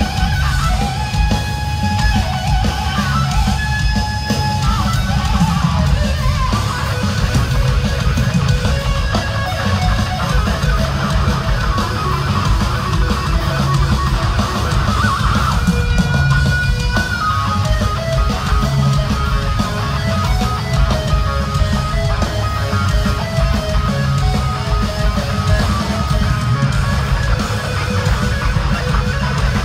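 Heavy metal band playing live: a distorted electric guitar lead line with long held notes over bass and drums, heard through a large hall's sound system.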